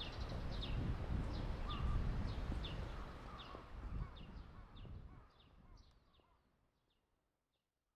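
A bird calling a short, falling chirp about twice a second over a low rumble of background noise; the whole sound fades out near the end.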